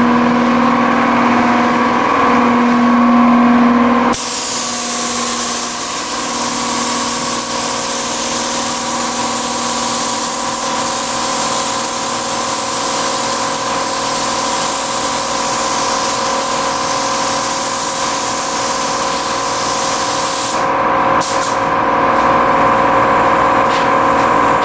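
Compressed-air paint spray gun hissing steadily as it sprays a car's hood. The hiss starts about four seconds in, cuts off near the end, and gives a short burst just after. A steady machine hum with several held tones runs underneath.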